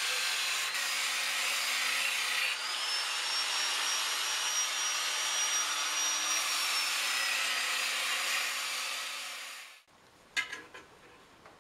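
Angle grinder with a sanding disc running against the staves of a cherry-wood barrel: a steady motor whine over the rasp of sanding. The whine steps up in pitch about two and a half seconds in and eases back down later. It cuts off near the end, followed by a sharp knock and a few light clicks.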